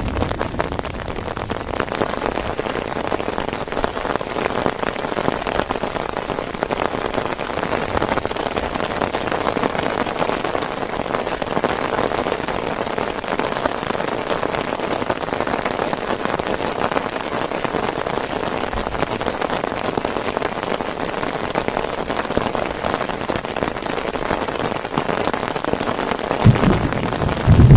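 Heavy rain falling steadily, a dense patter of drops. A low rumble swells near the end.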